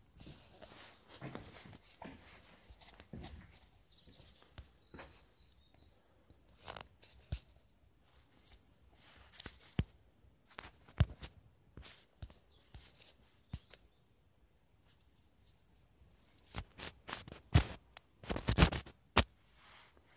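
Irregular light scratching and rubbing with scattered small knocks, the loudest a cluster of knocks near the end.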